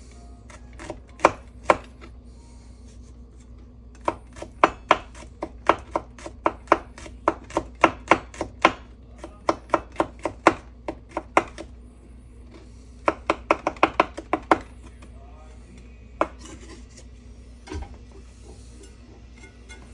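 Chef's knife mincing garlic on a wooden cutting board: sharp knocks of the blade on the board in runs of about three a second, broken by short pauses.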